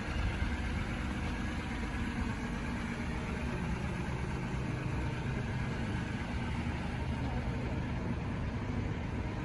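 A vehicle engine idling steadily with a low rumble.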